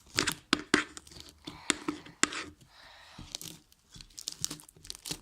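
Homemade slime being worked by hand, giving a run of sharp, irregular sticky clicks and crackles.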